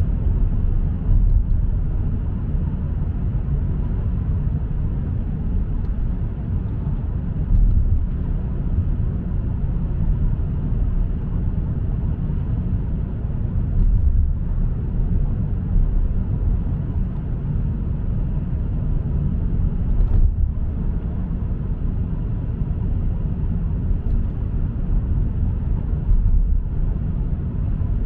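Steady low rumble of a car on the move: engine and tyre road noise, with a few faint knocks.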